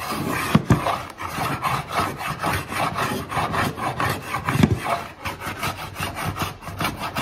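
Small hand block plane shaving the edge of a glued-up wooden drawer side in quick repeated strokes, its blade dull.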